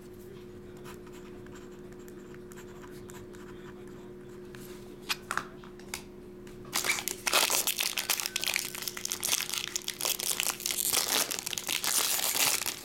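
A few light clicks, then, about seven seconds in, a trading-card pack's wrapper being torn open and crinkled for about six seconds.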